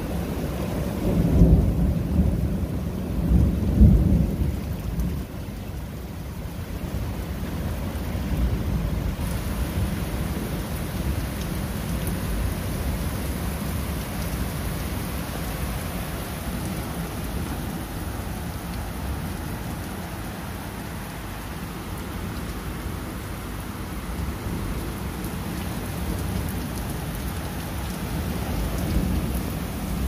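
Steady rain falling, with a low rumble of thunder in the first few seconds that swells twice, about one and a half and four seconds in, then dies away into the rain.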